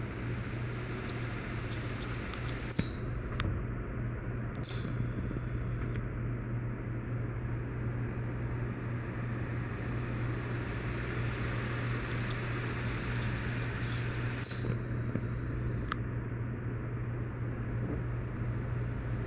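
Steady low hum with an even hiss, like machine noise running in a room, with a few faint clicks.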